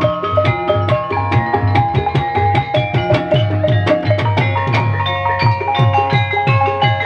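Javanese gamelan music accompanying ebeg: kendang hand drum strokes bending down in pitch at a quick, even beat, under ringing metallophone tones.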